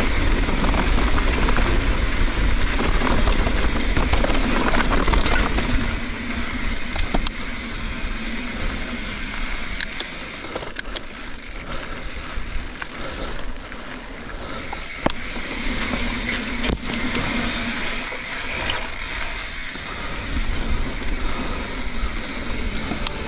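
Mountain bike running fast down a dirt trail: tyre noise on dirt and wind rushing over the camera mic, with sharp clicks and rattles from the bike here and there. The rumble is heaviest at first and eases about six seconds in.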